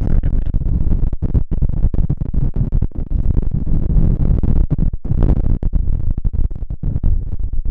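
Strong wind buffeting the microphone: a loud low rumble broken by many brief dropouts.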